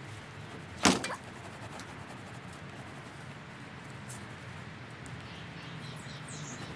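Garden ambience with a steady background hiss, broken about a second in by one sharp knock followed by a couple of smaller clicks, and a brief high bird chirp near the end.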